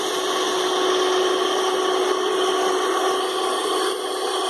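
Electric stand mixer running at a constant speed, its twin beaters beating eggs and softened margarine in the bowl; a steady motor hum with a whirring noise over it.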